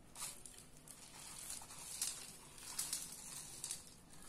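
Crunchy fried sev mixture sprinkled onto puffed rice in a steel bowl: a faint, irregular rustling patter of small dry pieces landing, thickest a couple of seconds in.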